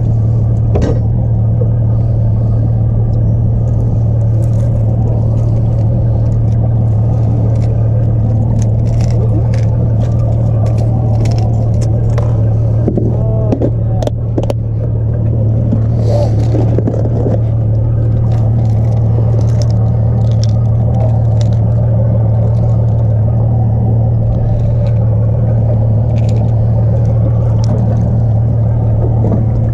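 Boat engine running steadily at one constant pitch, with scattered light clicks and knocks over it.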